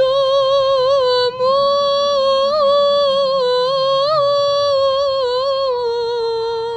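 A woman singing a long, drawn-out melismatic phrase of an Arabic Christian lament, one voice holding a note with small ornamental turns. There is a brief break for breath about a second in, and the voice fades away near the end.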